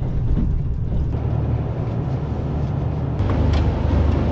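Steady low rumble of the Yufuin no Mori diesel train, heard inside the carriage. It grows louder about three seconds in.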